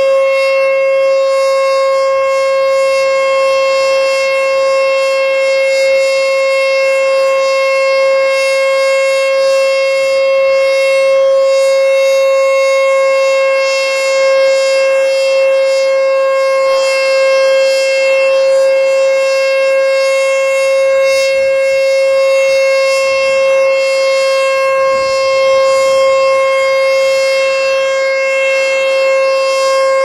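American Signal T-121 electronic tornado warning siren sounding its steady alert tone for the monthly test: one loud, unbroken pitch with overtones that holds without rising or falling.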